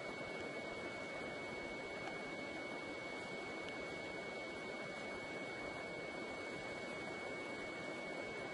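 A steady high-pitched tone held without change over a constant even hiss.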